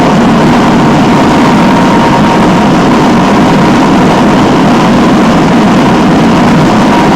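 Alfa Romeo 1750's twin-cam four-cylinder engine running loud and steady under way, heard from inside the car.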